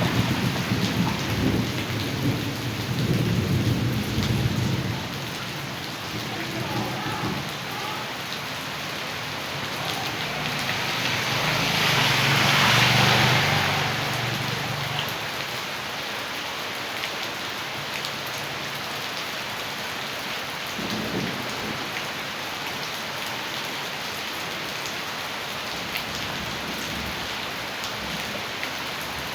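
Heavy rain falling, with a steady rush of rainwater runoff. Low rumbles run through the first few seconds, and a louder swell rises and fades about twelve to fourteen seconds in.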